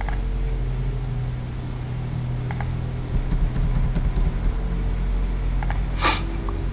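A few sparse clicks at a computer while paging through on-screen input-method candidates, over a steady low hum. The loudest click comes about six seconds in.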